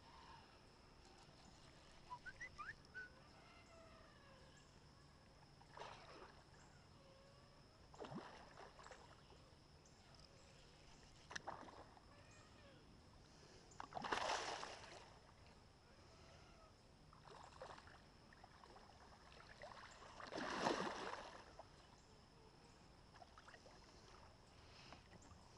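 Water splashing in short bursts, a few small ones and two louder ones past the middle, as a hooked striped bass thrashes at the surface beside a canoe. Between the splashes it is nearly silent.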